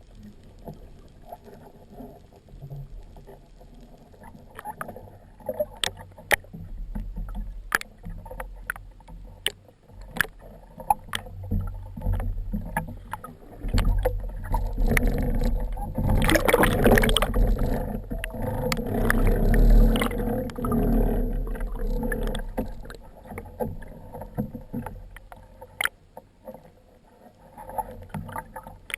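Water movement heard on an underwater camera: a low rush, with scattered sharp clicks and knocks throughout. It swells into a loud, churning rush of water through the middle and dies back down near the end.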